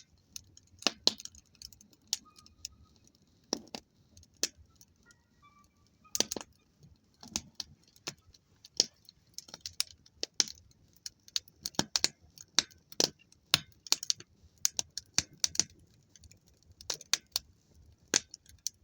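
Campfire crackling: irregular sharp pops and snaps of burning wood and embers, some coming in quick clusters, over a faint steady hiss.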